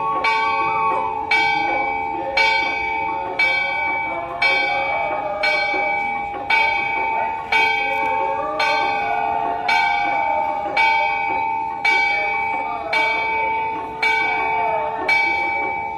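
A temple bell struck steadily about once a second for the aarti, each stroke ringing on into the next. Voices chant underneath.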